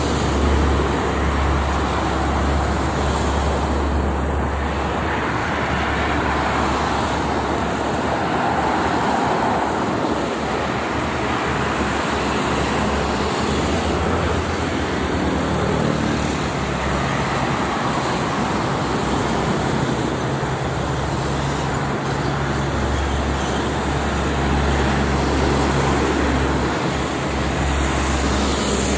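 Steady roar of traffic on a busy multi-lane motorway carrying mostly heavy trucks. Tyre noise and engines swell and ease as vehicles pass, over a constant low rumble.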